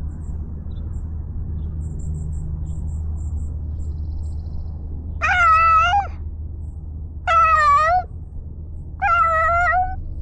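A cat meowing three times, long drawn-out meows a second or so apart, over a steady low rumble.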